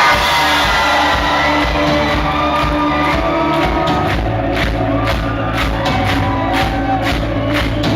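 Rock band playing live to a concert crowd, with singing over the music and some shouts and whoops from the audience. A steady beat, about two hits a second, comes in about two and a half seconds in.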